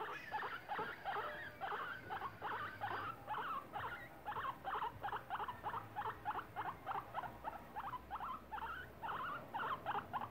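Guinea pig squeaking in a rapid series of short calls, about four a second. It sounds unsettled at being held, and is being soothed.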